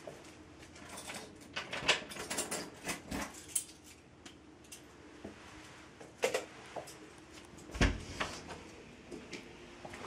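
Handling noise from a handheld camera: scattered clicks, rustles and knocks, with a loud thump about eight seconds in. Underneath runs a faint steady low hum.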